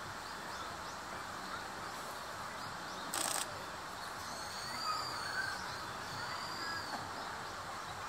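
Steady outdoor background noise with faint, high, drawn-out bird calls in the second half and a short hissing burst about three seconds in.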